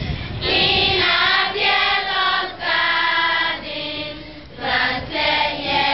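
A large group of schoolgirls sings together in long held notes, phrase after phrase with short breaths between. One phrase around four seconds in is softer.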